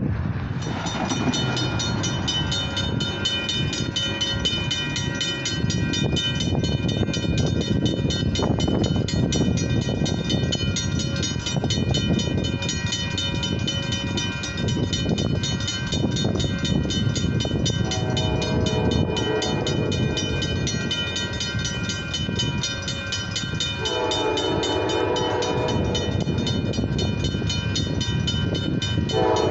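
Grade-crossing warning bells ringing rapidly and steadily, with the gates down, over wind noise on the microphone. An approaching Amtrak train's horn sounds a long blast past halfway, a louder long blast a few seconds later, and starts again just at the end.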